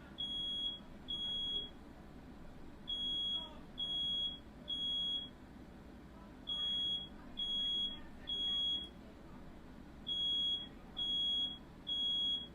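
Smoke alarm sounding its high-pitched fire pattern: three beeps about a second apart, a pause, then three more, over and over. Set off by smoke from a firework that caught fire.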